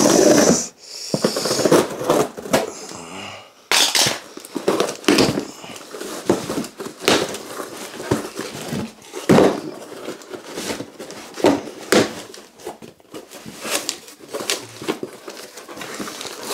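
Cardboard packaging being slit open along its taped seam, loudest in the first second, then handled and pulled open, with irregular sharp crackles, scrapes and rustles of cardboard and plastic-wrapped parts.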